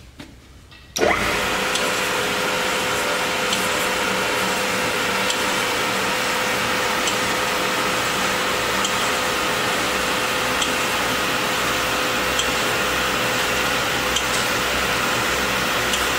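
Hyd-Mech DM-10/2 horizontal band saw switched on about a second in, then running steadily without cutting, with a steady tone and a faint tick about every second and three-quarters.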